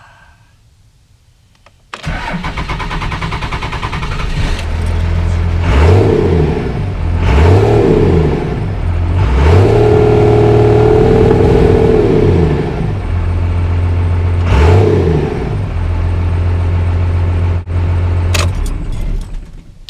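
A 1997 Dodge Ram's Cummins 5.9 diesel starts about two seconds in and settles to idle, then is revved four times with the pedal, the third rev held near 2000 rpm for a couple of seconds. This is a start-up and throttle-response check just after the throttle linkage and throttle position sensor were refitted.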